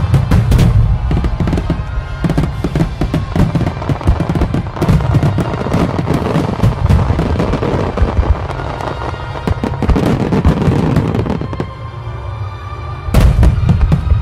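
Fireworks display: a dense, continuous volley of shell bursts, booms and crackling, with a louder cluster of bangs near the end. Music plays underneath.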